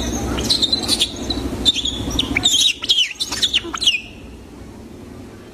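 Many quick high-pitched chirps and squeaks, overlapping, over a low background murmur; they stop abruptly about four seconds in, leaving a quiet steady hiss.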